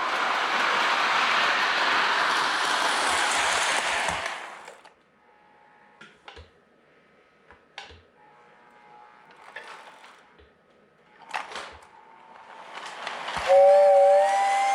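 Toy Polar Express train set's sound effects: a loud steam hiss for about four and a half seconds, then a few faint clicks, then a steady steam whistle near the end.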